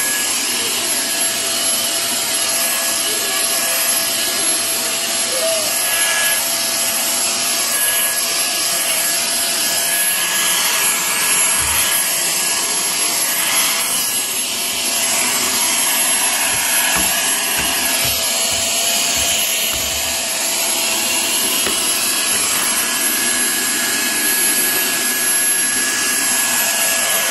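Vacuum cleaner running steadily with its long crevice nozzle worked along the skirting board and into the carpet corners: a constant motor whine over the rush of suction. A few low knocks come around the middle.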